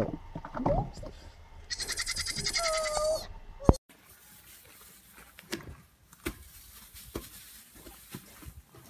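Goat bleating: one long, wavering call about two seconds in that ends on a lower held note. A few faint knocks follow.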